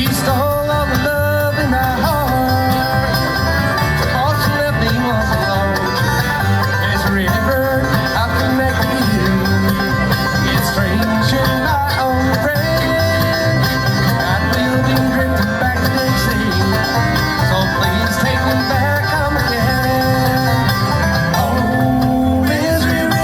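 Bluegrass music with banjo and guitar, and a singing voice.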